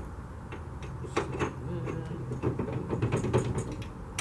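Irregular metallic knocks, clanks and rattles from the metal conduit frame of a scissor-style duck blind being lifted and pinned in place on a jon boat, with a low steady hum underneath.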